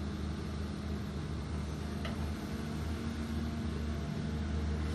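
Volvo long-reach crawler excavator's diesel engine running with a steady low drone while its arm is raised.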